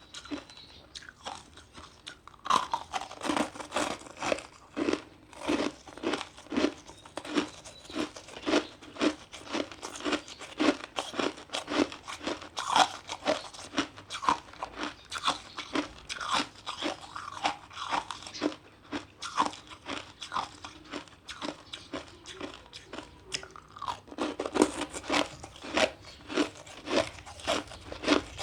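Ice being bitten and chewed, a rapid run of crisp crunches at about two a second, starting after a quieter couple of seconds.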